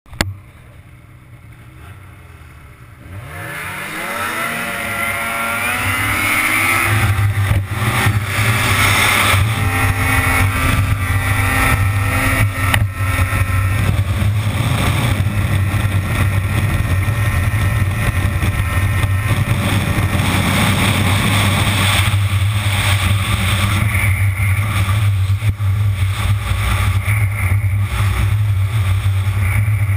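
Snowmobile engine sitting at a low idle, then opened up about three seconds in, its pitch climbing steeply as the sled accelerates in a drag run, then running loud and steady at high revs.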